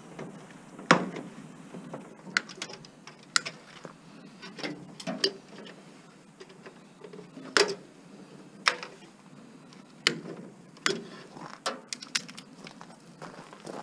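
Irregular clicks, clinks and knocks of small metal and plastic parts being handled and pulled loose as an over-the-range microwave is stripped for scrap, with two louder knocks about a second in and halfway through.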